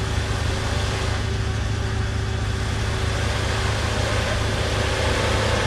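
Off-road 4x4's engine running at a steady low speed as the vehicle crawls through deep snow, a constant low hum without revving.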